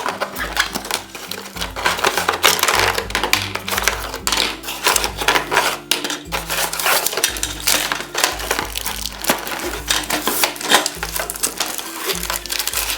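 Hard plastic toy pieces and packaging rattling and clicking as a Play-Doh playset is taken out of its box, in quick irregular clatters, over background music.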